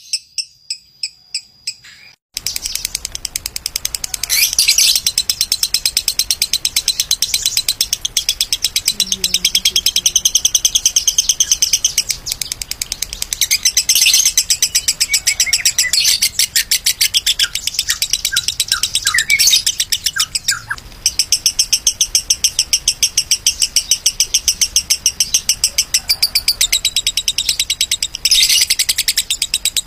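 An adult Fischer's lovebird singing a long, rapid chattering song of fast high chirps. A few spaced chirps are followed by a short break about two seconds in, and then an almost unbroken run of chatter with only a brief dip near the twenty-second mark.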